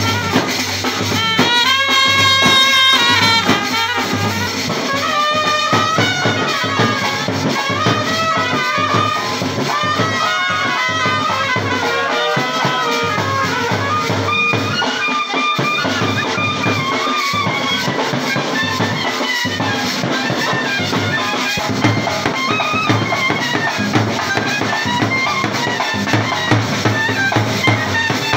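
Wedding brass band playing a lively melody on trumpets and clarinet over a steady drum beat.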